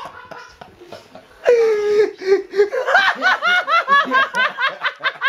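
Loud, high-pitched laughter breaking out about a second and a half in, a rapid run of "ha" pulses at about four a second, in reaction to a prank-call punchline.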